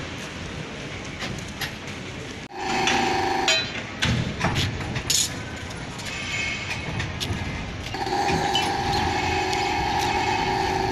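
Railway traverser carrying a passenger coach along its rails, its running gear rumbling with metallic clinks and knocks. A steady humming tone comes in briefly about three seconds in and again for the last few seconds.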